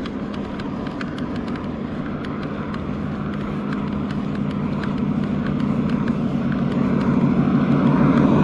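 An approaching car's engine and tyre drone, growing steadily louder as it closes in. Faint regular clicks run under it.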